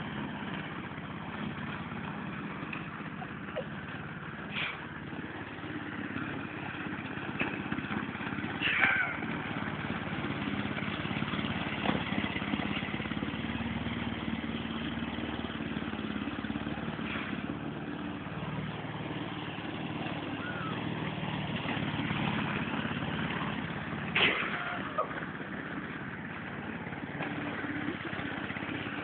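Lawn mower engine running steadily, with a few brief sharp sounds over it: one early on, one about nine seconds in and one about twenty-four seconds in.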